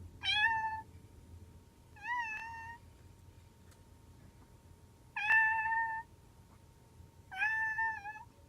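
A person imitating a cat's meow with their voice: four short meows, about two seconds apart.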